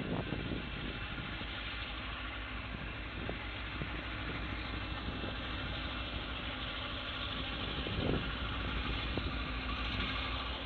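CSX freight train passing: a steady rumble with a few sharp clicks.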